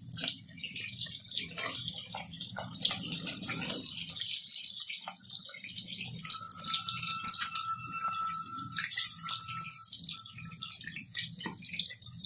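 Chicken pieces sizzling and crackling in shallow hot oil in a steel kadai, with a wire spider strainer clinking and scraping against the pan as the pieces are turned and lifted out.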